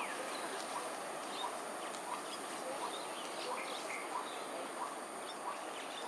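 Outdoor ambience: a steady hiss with short chirping calls repeated about twice a second, and scattered higher chirps among them.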